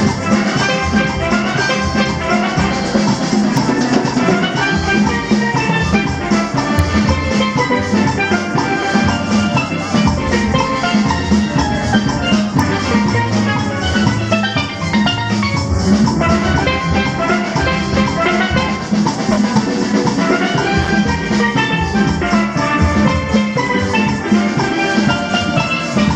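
Steel band playing a calypso: many chromed steel pans struck with rubber-tipped mallets in quick runs of ringing notes over a steady beat.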